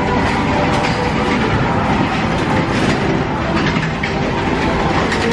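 Space Mountain roller coaster train rattling and rumbling along its steel track, heard from on board.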